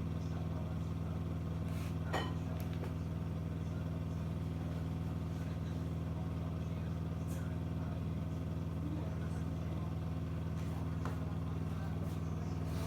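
Dishwasher running with a steady low hum, the strange noise it is making, with a single click about two seconds in.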